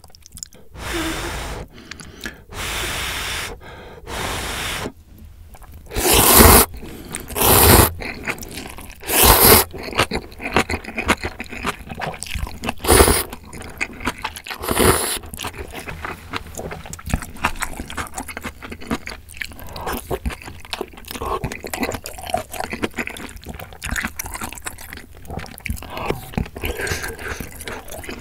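Close-miked slurping and chewing of instant ramyeon noodles with sausage slices and kimchi: a run of long, loud slurps in the first half, then steady wet chewing full of small mouth clicks.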